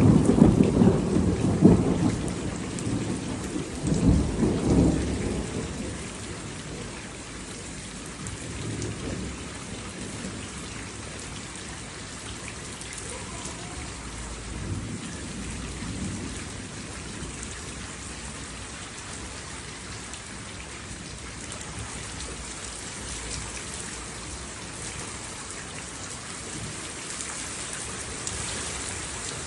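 Steady heavy rain falling, with thunder rumbling loudly at the start and again about four seconds in, then fading to fainter, distant rumbles.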